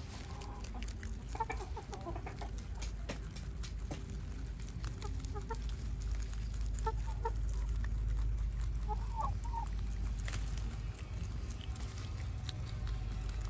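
A hen clucking in short calls every few seconds, over a steady low rumble and many small sharp clicks of rabbits chewing fresh leafy greens.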